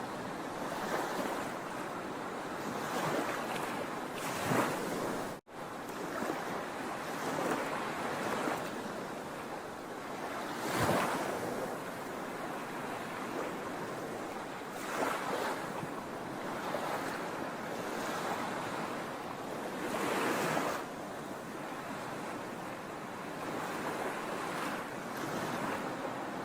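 Sea waves breaking and washing on a shore: a steady rush of surf that swells louder every few seconds as each wave comes in. The sound cuts out for an instant about five seconds in.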